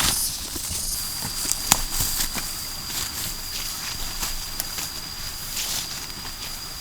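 Footsteps walking over the forest floor, an irregular run of steps crunching on leaf litter and twigs.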